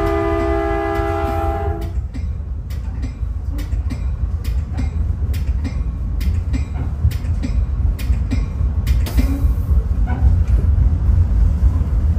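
A Caltrain train horn sounds a chord of several notes and cuts off about two seconds in. After that comes the low rumble of the passenger train rolling along, with scattered clicks from the wheels over the track.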